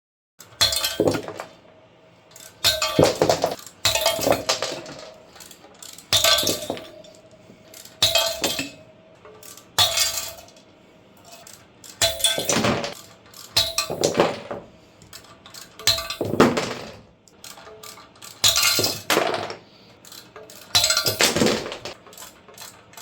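Steel valve springs and their retainers and keepers from a BMW M54 cylinder head clanking and clinking as they are worked off and set down, one after another. There are about ten clattering bursts, each with a short metallic ring.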